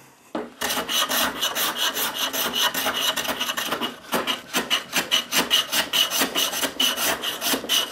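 Hand plane taking quick, repeated shavings off the edges of two wooden boards clamped in a vise, about three strokes a second with a short pause about four seconds in.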